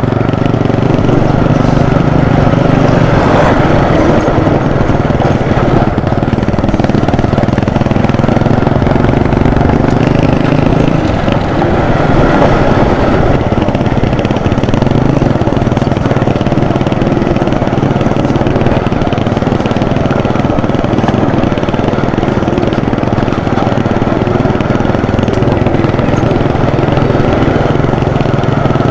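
Small motorcycle engine running steadily while riding, with a low rumble underneath; its pitch shifts about eleven seconds in.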